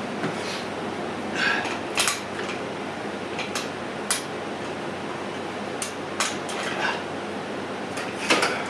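Scattered metallic clinks and knocks, about seven in all, from the parts of a BioForce home gym machine being handled while its cable pulleys are adjusted, over steady background noise.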